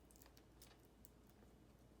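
Near silence with a few faint, light clicks from handling the display cable connector as it is fitted to the new laptop LCD panel.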